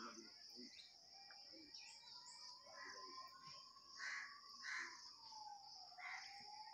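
Faint rural outdoor ambience: a steady high-pitched insect-like drone with short bird calls every second or so, and a faint thin steady tone that dips slightly near the end.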